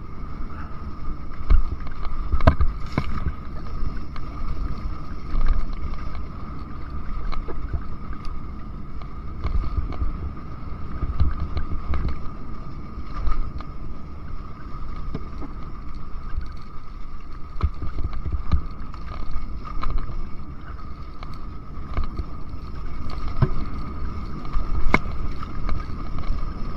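Enduro motorcycle riding along a rough, rocky dirt trail: a steady engine rumble and wind buffeting the microphone, with scattered knocks from the bike jolting over stones.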